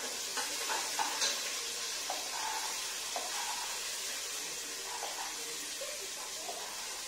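Steady sizzle of a mustard-seed, onion and curry-leaf tempering frying in oil in a pressure cooker, as chickpeas are spooned in from a steel cup. A few sharp clinks of a steel spoon against steel come in the first second or so, with light scraping after.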